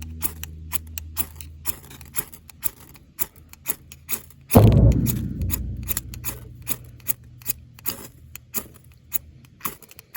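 Added music or sound effect: a clock-like ticking beat, about three ticks a second, over low sustained bass tones, with a heavy booming bass hit about four and a half seconds in that dies away slowly.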